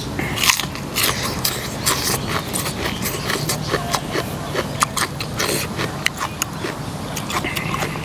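A person biting and chewing crunchy food close to the microphone, with many sharp crunching clicks: mouthfuls of spicy papaya salad with raw vegetables.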